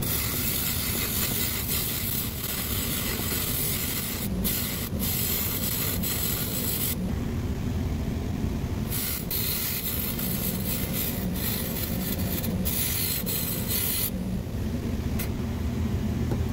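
Variable-speed bench buffer running with a cotton buffing wheel, while a metal buffing-wheel rake is pressed into the spinning wheel in several passes with short breaks. Each pass gives a scratchy rasping hiss over the steady motor hum as hardened, caked-up polishing compound and cotton fluff are torn off the wheel.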